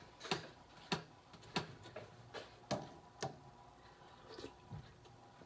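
Soft, sharp clicks and taps at irregular intervals of about half a second to a second, thinning out toward the end, as the soup is tasted from a spoon: spoon against pot and mouth sounds while tasting.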